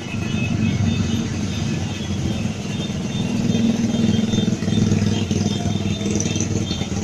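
Engines of a stream of motorcycles and scooters, vintage Vespas among them, running as they ride past in a convoy, a continuous dense rumble with faint higher tones over it.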